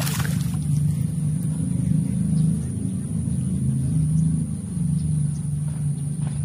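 A hooked Nile tilapia splashes at the surface right at the start, over a steady low rumble like a motor running that continues throughout.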